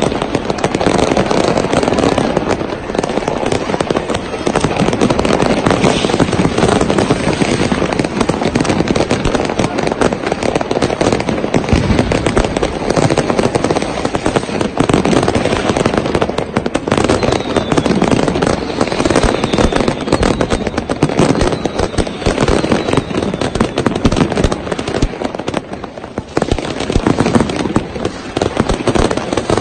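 Dense barrage of fireworks: a continuous rapid crackle of many rapid bangs and pops from several rockets and firecrackers going off at once, with no break.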